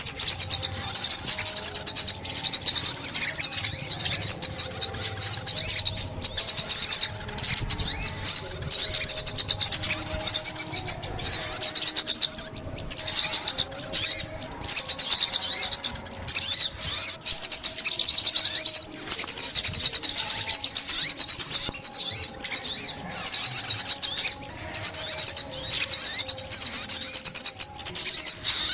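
Sunbird song: a rapid, high-pitched twittering run, nearly continuous with a few brief pauses.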